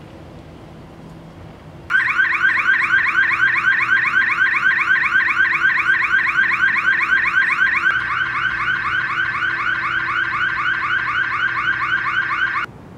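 Electronic alarm siren sounding a rapid run of repeated rising chirps. It starts suddenly about two seconds in, shifts to a slightly quieter pattern about eight seconds in, and cuts off suddenly near the end.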